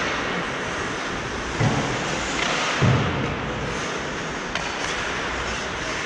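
Hockey game in play: a steady noisy hiss with two dull thumps, about one and a half and three seconds in.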